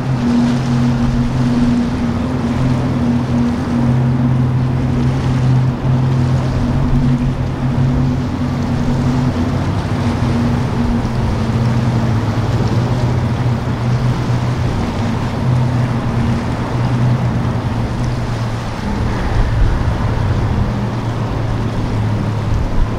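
Large motor yacht's engines running with a steady low drone, over the rush of water and wind.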